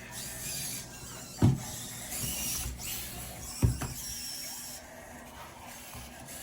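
Robosen Optimus Prime robot toy's servo motors whirring as it transforms on voice command, with two sharp knocks about a second and a half in and again near four seconds.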